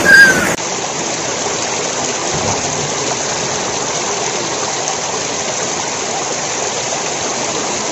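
Shallow stream water rushing over a stony channel bed, a steady, even rush. Right at the start there is a brief louder sound with a short whistled note before a cut to the steady water.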